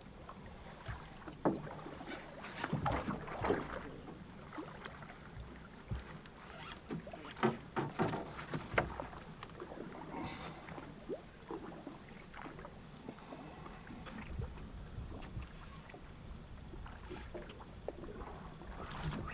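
Scattered knocks and clunks on a small wooden boat, over a low steady wash of water and wind. The knocks are loudest about three seconds in and again around eight seconds in.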